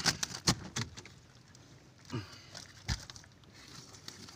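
Fresh-caught reef fish being handled on a boat deck: a quick run of wet slaps and knocks, then a thud near the end. About two seconds in there is a short, low, falling grunt.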